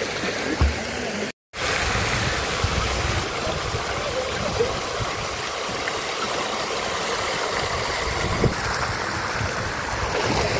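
Steady rush of water falling from a water-curtain feature and splashing into a swimming pool. The sound cuts out completely for a moment about a second and a half in.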